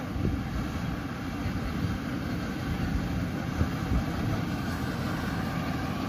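Distant Maxxi Bimo combine harvester running steadily while cutting rice, heard as an even low rumble.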